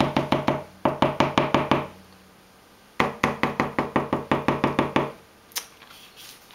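Small plastic squeeze bottle of blue tempera paint tapped rapidly against paper on a tabletop, dabbing on paint at about seven taps a second. There are two runs of about two seconds with a short pause between, and a single click near the end.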